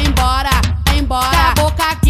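Old-school Brazilian funk carioca music: a pitched, sliding melodic line over a heavy, pulsing bass beat.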